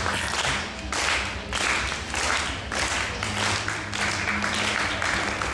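Audience applauding in uneven swells, with a low steady hum underneath.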